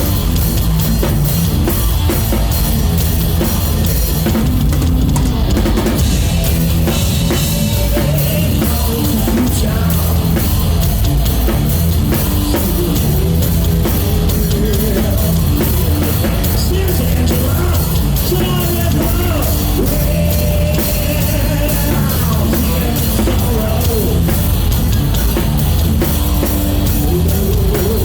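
Live rock band playing loud, with the drum kit up front over electric guitars and bass.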